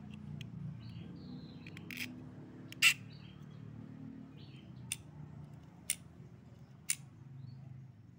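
Sharp clicks of metal parts being handled as screws and threaded rods are fitted into an aluminium square tube. The loudest click comes about three seconds in, then about one a second after that. Faint bird chirps sound in the background over a steady low hum.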